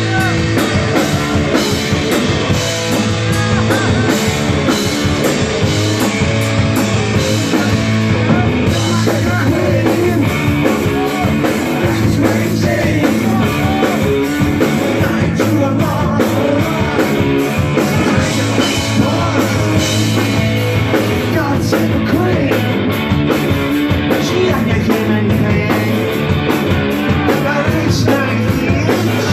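Punk rock band playing live: electric guitar, bass guitar and drum kit with a male voice singing, loud and continuous.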